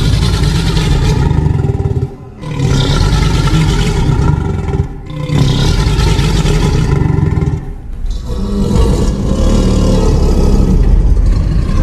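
Reconstructed dinosaur roars: four long, loud, low rumbling roars of about two and a half seconds each, with brief breaks between them.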